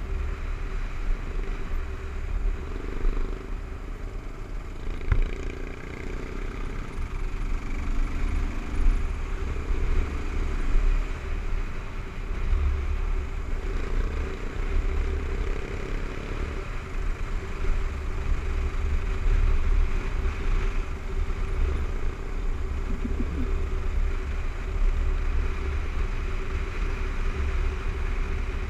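Kawasaki KLR 650's single-cylinder four-stroke engine running as the motorcycle cruises along a dirt road, heard from the bike. The engine note wavers a little over a steady, heavy low rumble.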